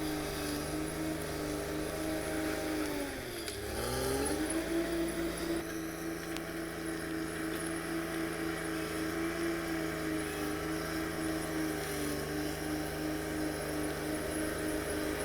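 Diesel engine of a Caterpillar D6R XL crawler bulldozer running steadily at working speed. About three seconds in, its engine speed sags briefly and then picks back up.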